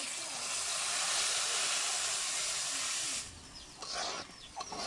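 Loud sizzling hiss as a thin orange spice mixture is poured into hot oil in an iron kadai, stopping abruptly about three seconds in. A few bird chirps follow near the end.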